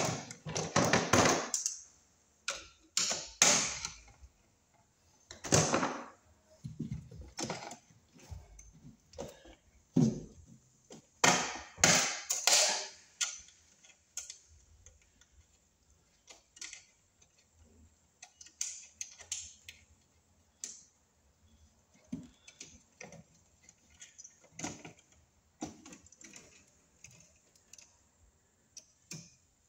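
Irregular rustling, scraping and clicks as 10/3 electrical cable and its wires are handled and worked into a metal sub panel box. The sounds come thickest in the first half and grow sparser later.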